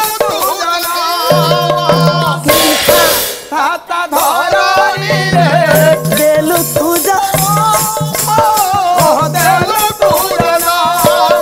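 Pala ensemble music: a melody with a wavering, ornamented pitch over drum and bright, rattling hand percussion, with a short break about three seconds in.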